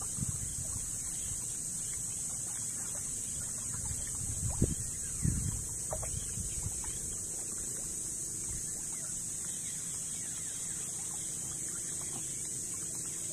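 Shallow sea water sloshing and lapping around a small outrigger boat and a wading man, with wind buffeting the microphone and a steady high hiss underneath. A couple of louder splashes or knocks come about four and a half and five seconds in.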